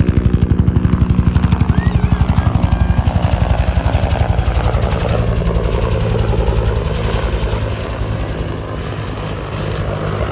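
UH-1 Huey helicopter's two-blade main rotor beating in a fast, even pulse over the turbine's hum, fading as the helicopter departs.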